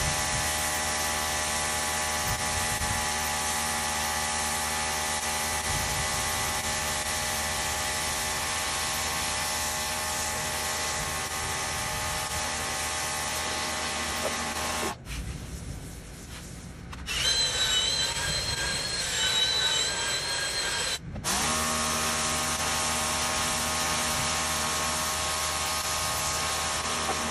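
Pressure washer running, its motor and pump whining steadily under the hiss of the spray rinsing foam off a doormat. About 15 seconds in it drops away for two seconds. A different, higher whine comes in for a few seconds, then the spray cuts out briefly and the steady running resumes.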